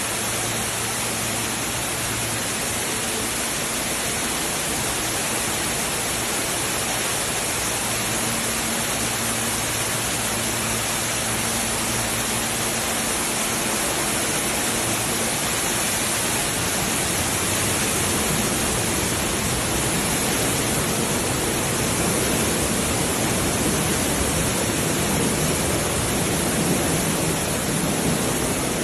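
Floodwater pouring and rushing steadily into a subway station, a constant loud wash of water noise. A faint low hum sits under it for the first dozen seconds or so.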